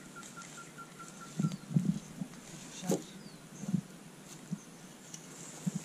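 Outdoor rural background with a rapid, even chirping of about six a second that stops about a second in, a few faint short bird chirps, and several dull thuds.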